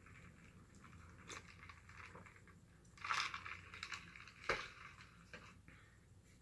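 A person chewing and eating food, with soft, irregular mouth sounds, a louder patch of noise about three seconds in and a sharp click about a second and a half later.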